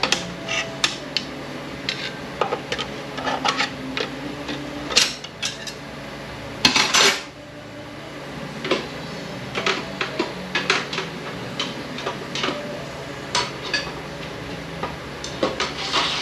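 Metal automatic-transmission internals being handled and pulled apart: irregular clinks and knocks of steel parts, with a louder clatter lasting about half a second around seven seconds in.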